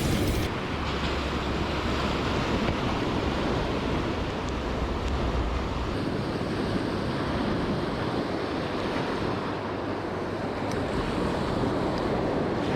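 Sea waves washing steadily, with wind buffeting the microphone, the rumble heavier in the first half.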